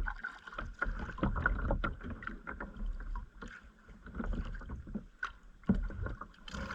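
Kayak paddling on a river: irregular small splashes and drips from the paddle blades, with light clicks and knocks.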